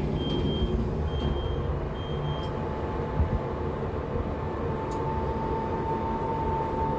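Lift door-closing warning beeps, three short evenly spaced beeps at one pitch, then the lift car travelling down with a steady low rumble. A thin steady whine joins about five seconds in.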